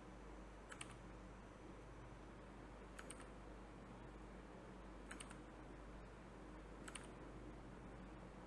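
Faint clicks of a computer keyboard and mouse during code editing: four short clicks, about two seconds apart, some of them doubled.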